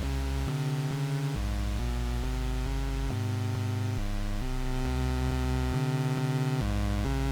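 Eurorack modular synthesizer playing a sequence of low droning notes that step from pitch to pitch about every half second to second, with no gaps between them.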